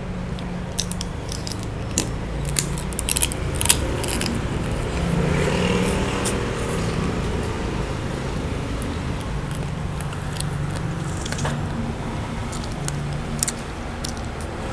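A person eating: a quick run of sharp crunches and cracks in the first few seconds, a couple more near the end, over a steady low hum.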